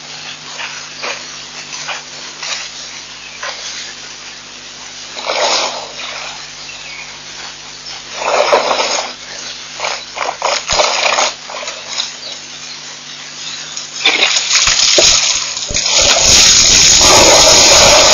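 African elephant drinking at a waterhole: short noisy bursts of water and trunk sounds, then near the end a long, loud gush of water as it empties its trunk into its mouth and the water spills back down.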